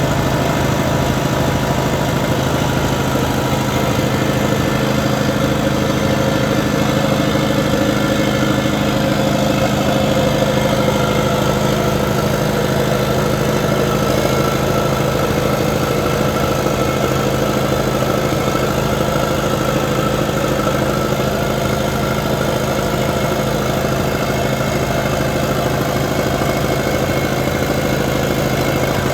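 Compact track loader's engine running steadily at an even speed, with a fainter whine above it that drifts slightly in pitch.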